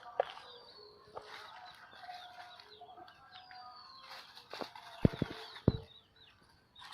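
Foraging chickens clucking with small birds chirping, then a cluster of sharp low thumps a little past five seconds in, the loudest sounds in the stretch.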